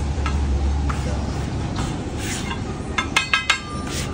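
Metal cooking utensil clinking against a pan: a quick run of ringing clinks about three seconds in, over a steady low background rumble.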